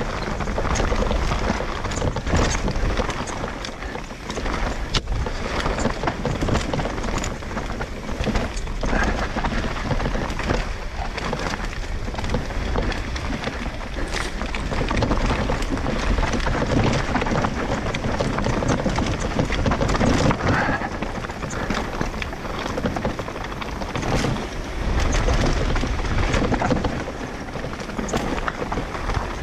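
Mountain bike riding fast down a dirt trail: a steady rush of tyre and wind noise broken by many rattles and knocks as the bike goes over rocks and roots.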